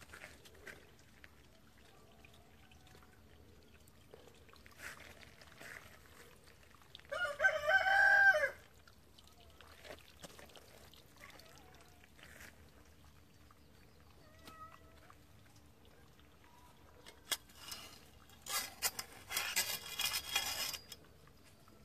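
A rooster crowing once, a loud wavering call of about a second and a half, about seven seconds in. Near the end comes a harsher, noisier sound lasting about two seconds, over faint background noise.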